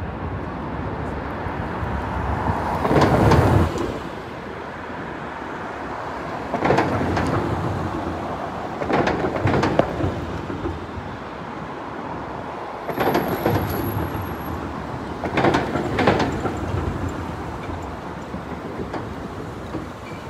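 Midtown street traffic: a steady hum of engines and tyres, with four louder swells as cars, taxis and vans pass close by.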